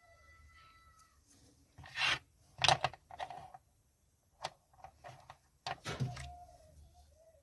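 Handling noises from small parts and tools being worked on: a series of short, irregular scrapes, rubs and clicks, loudest about two to three seconds in and again around six seconds.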